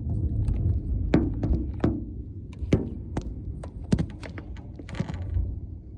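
Low rumble of thunder following a lightning flash, with about a dozen irregular sharp taps and knocks over it.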